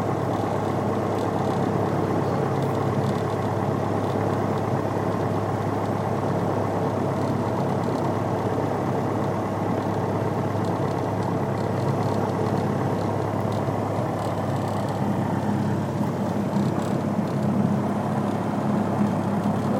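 Light airplane's piston engine and propeller running steadily at low power, heard from inside the cockpit.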